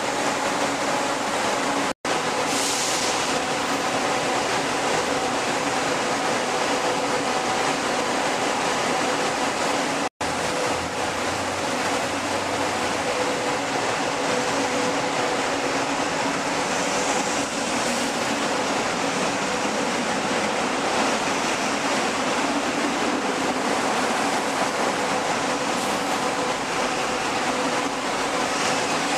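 Steady rumble of buses running in an enclosed underground bus terminal, echoing, with a constant hum under it. The sound drops out to silence twice, briefly, about two and ten seconds in.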